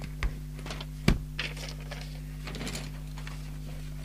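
A few sharp knocks and taps as the opened CB radio is handled on the workbench, the loudest about a second in, followed by a sheet of paper rustling as it is laid down. A steady low hum sits underneath.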